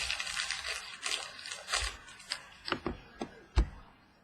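Trading cards and foil pack wrappers being handled: a rustle for about two seconds, then several light taps of cards, the loudest near the end.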